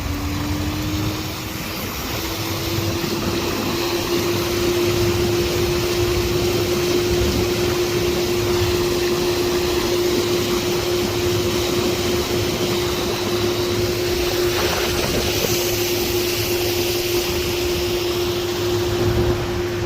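Golden Motor EZ-X20 electric outboard running under way: a steady whine from its gearless brushless motor that finishes climbing in pitch in the first couple of seconds and then holds, over a constant rushing noise.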